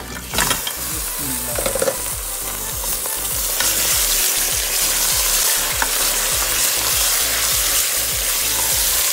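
Raw mutton pieces landing in hot oil over browned onions in a pressure cooker, sizzling hard as they are stirred with a wooden spatula. The meat lands with a burst just after the start, and the sizzle grows louder about three and a half seconds in, then holds steady.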